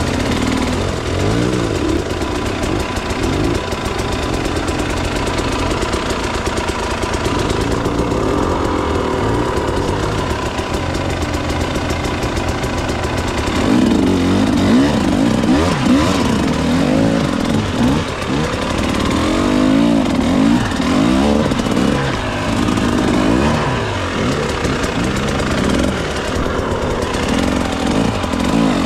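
KTM 300 EXC TBI's single-cylinder two-stroke engine running and being revved up and down over and over, its pitch rising and falling. The revs swing harder and more often from about halfway on.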